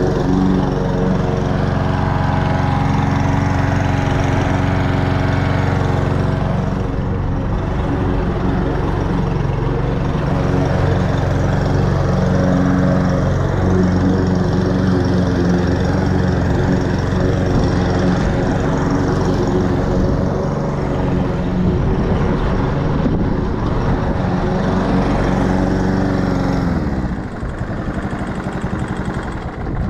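Makita push lawn mower's 140cc engine running steadily, then switched off near the end, its pitch falling as it runs down and stops.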